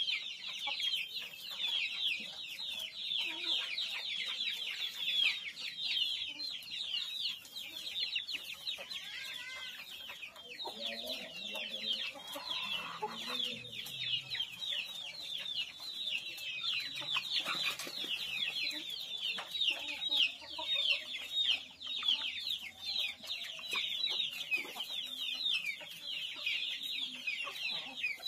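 Young kampung (Indonesian village) chickens peeping: many short, high, falling chirps in a fast, unbroken stream.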